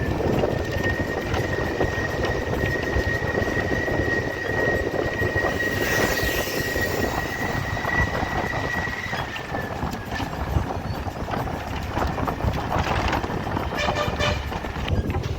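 Train running with a steady rumble and clatter. A single high squeal holds steady for about the first nine seconds, then dips slightly as it fades.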